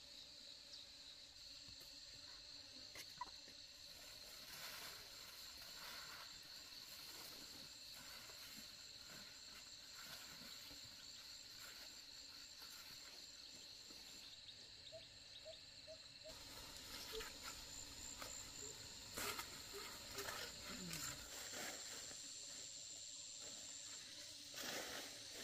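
Faint outdoor ambience of insects trilling steadily in a high pitch, with a few rustles and knocks, most of them in the second half.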